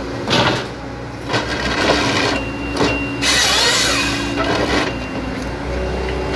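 Hitachi ZX138MF-5G excavator's diesel engine and hydraulics running steadily while its Kesla 25RH harvester head works a eucalyptus log. Several short loud rasping bursts come from the head, with a longer one lasting about a second near the middle.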